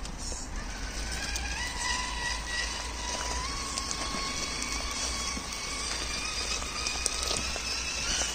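Electric motor and gearbox of a radio-controlled scale crawler whining as it drives. The pitch holds steady and steps up slightly about a second in and again a few seconds later, with scattered light clicks.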